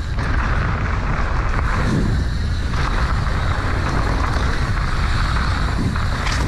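Wind rushing over the camera microphone and mountain-bike tyres rolling over moist dirt on a fast trail descent, a steady noise with no clear tones.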